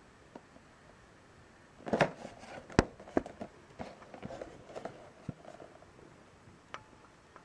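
A small cardboard box handled and turned over in the hands: a burst of knocks, taps and rustling starts about two seconds in and runs for a few seconds, followed by a single tick near the end.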